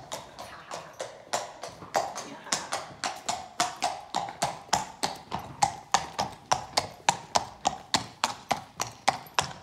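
A horse's hooves clip-clopping at a walk on hard ground, an even beat of about three to four strikes a second.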